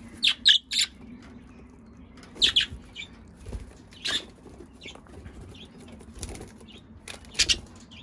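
Budgerigars and cockatiels flapping their wings in short flights, with brief sharp chirps: three close together in the first second, then a few more scattered through the rest.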